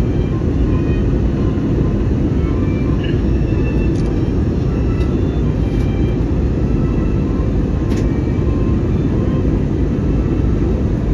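Cabin noise of an airliner in flight, heard from inside the cabin: a loud, steady low rumble of the engines and rushing air.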